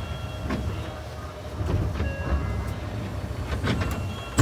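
Inside a Tokyu 8500-series subway train running through the tunnel: a steady low rumble with a few faint steady tones. Wheels click over rail joints several times, and there is a sharp knock at the very end.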